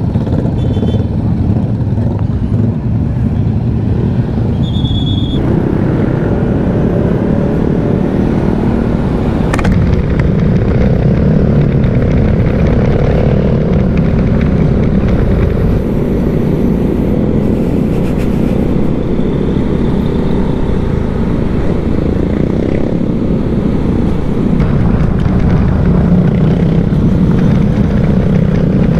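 Motor scooter engine running and wind rushing over an action camera mounted on the handlebars while riding in traffic. Two short high beeps sound about a second in and again around five seconds.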